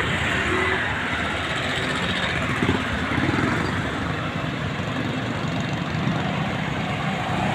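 Street traffic: motor vehicles passing close by, a steady mix of engine and tyre noise.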